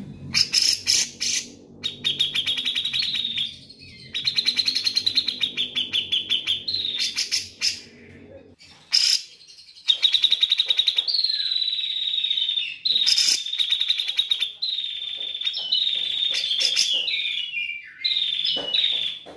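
Cucak jenggot (grey-cheeked bulbul) singing: rapid chattering trills held around one fairly steady pitch, in loud phrases of a few seconds each with short breaks between them.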